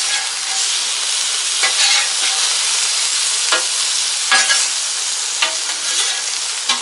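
Thin-sliced ribeye, green peppers and mushrooms sizzling steadily on a hot Blackstone griddle, with a few sharp scrapes and taps as the food is stirred and mixed on the steel top.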